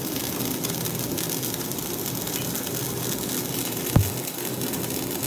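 Electric arc welding: the arc crackling and sizzling steadily, with one sharp knock about four seconds in.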